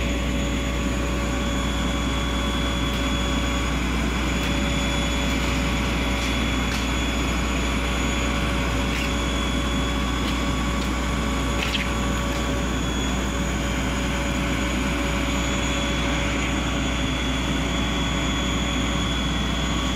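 Fire engine's diesel engine running at the scene, an even, unbroken drone.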